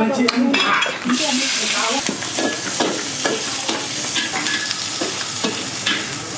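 Food frying and sizzling, a steady hiss with scattered clicks and clatter of kitchen utensils.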